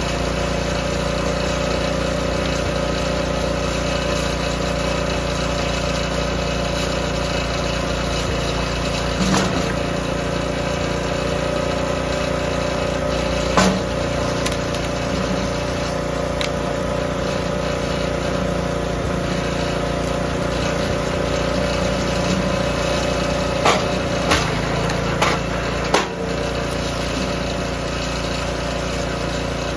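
DR K28 Pro log splitter's small gas engine running steadily, with a few sharp knocks from logs being set on the splitter's beam, several of them near the end.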